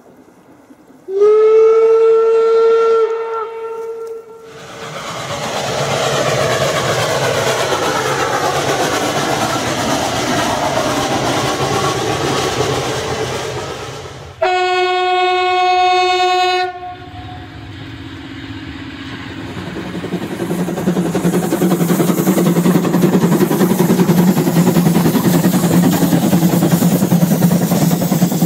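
A steam locomotive's whistle sounds for about three seconds, its pitch rising slightly as it opens. It is followed by the locomotive's exhaust as it works hard pulling away. About halfway through, a railcar sounds its horn for about two seconds; a brief lower note follows, and then the railcar's running sound grows louder as it draws near.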